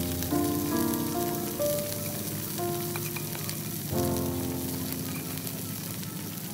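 Cooked rice and fried garlic sizzling in a steel frying pan over a camping stove, with a few light clicks as a spatula turns it. Slow background music chords play over it, the last one entering about four seconds in and fading away.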